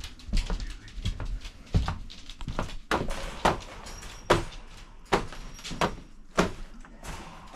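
A string of irregular knocks and rattles, about one or two a second, from a wire dog crate being jostled as a dog is petted through its bars.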